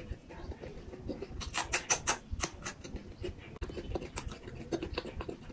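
Close-miked chewing of crispy samosa and raw green chilli: quick, sharp crunches and crackles, thickest about two seconds in.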